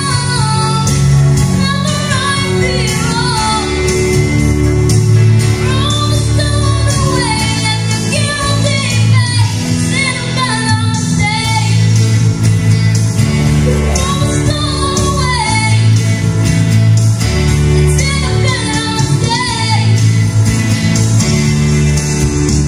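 A woman singing a song into a microphone, amplified through PA speakers over a recorded backing track with a steady bass line.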